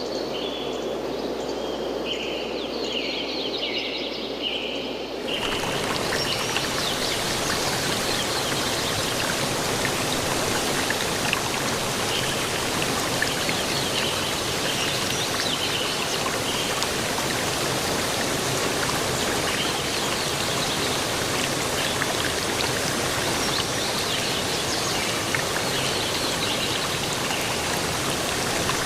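Steady rushing water, an even hiss like a stream or fountain, which gets fuller and louder about five seconds in. Before that there is a quieter hiss with faint short high chirps.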